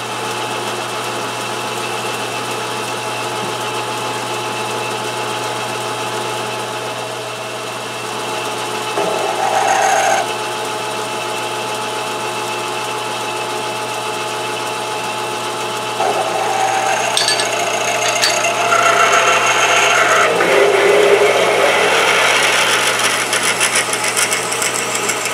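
Metal lathe running while a twist drill in the tailstock chuck drills the center of an aluminium pulley blank: a steady motor hum with the drill cutting. The cutting grows louder and rougher from about sixteen seconds in.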